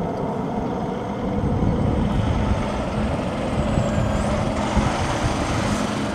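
Military jet engine noise: a steady, dense low rumble with a faint high whine that dips and rises about four seconds in.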